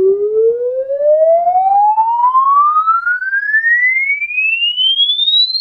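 A sine-wave sweep played through a Definitive Technology Demand D7 bookshelf speaker for a frequency-response measurement. It is a single pure tone gliding steadily upward in pitch, from a low tone to a high whistle, with faint overtones above it.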